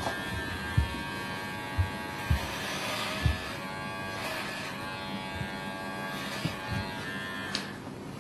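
Electric hair clipper buzzing steadily as it cuts hair close to the scalp, with a few short low thumps in the first half.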